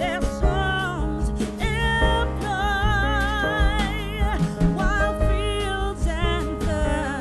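Background music: a song with a sung melody wavering in vibrato over a steady accompaniment.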